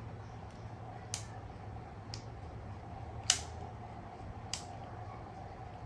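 Sharp clicks from locking a GoPro Hero 10 into its Ulanzi case: four clicks about a second apart, the third the loudest, over a faint steady hum.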